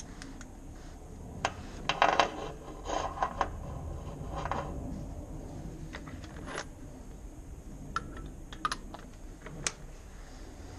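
Irregular metallic clicks, clinks and short scrapes of tools and metal parts being handled while a knock sensor is fitted back into the engine.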